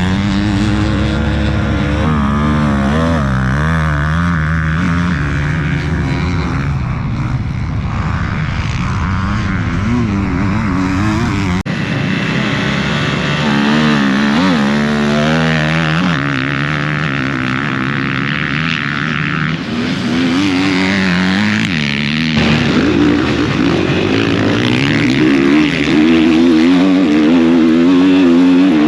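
Motocross dirt bike engine revving hard, its pitch rising and falling repeatedly with throttle and gear changes. The sound changes abruptly about twelve seconds in and again a little past twenty seconds.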